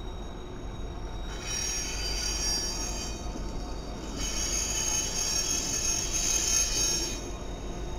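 Diesel freight locomotives passing on a tight curve, their wheels squealing against the rail in two high-pitched stretches, one starting just over a second in and a longer one from about four to seven seconds, over the steady low rumble of the train.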